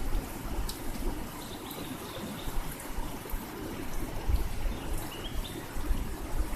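River water running and trickling steadily over stones, with a few short bird chirps about a second and a half in and again about five seconds in.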